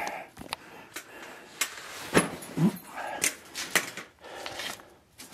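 A person squeezing through a tight, low crawl space under a wooden framework: clothing rustling, a few sharp knocks and scrapes against wood, and a short grunt of effort about two and a half seconds in.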